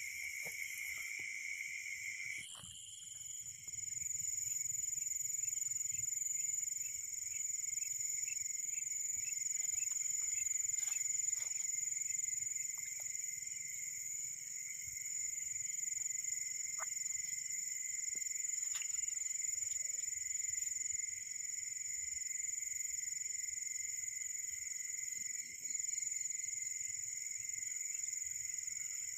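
Night insect chorus: several steady high-pitched trills sounding together without a break, with a few faint clicks and rustles of handling.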